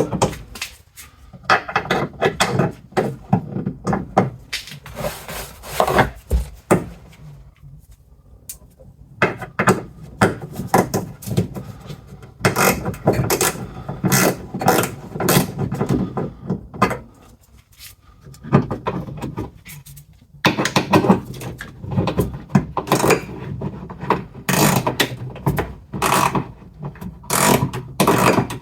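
Mounting bolts of a car's rear wiper motor being run in with hand tools: dense runs of metallic clicking and knocking in several bursts, with short pauses between them.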